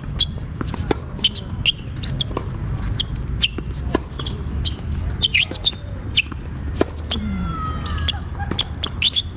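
Tennis rally on a hard court: sharp repeated strokes of the racket on the ball and ball bounces, with sneaker squeaks about seven seconds in.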